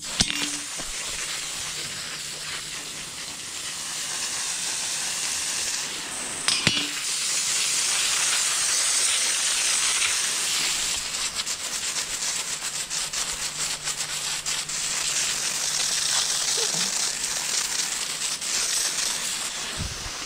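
Water jet from a pistol-grip hose nozzle hissing steadily as it washes concrete residue off the mixer's steel auger screw. The spray briefly falters with a knock about six to seven seconds in.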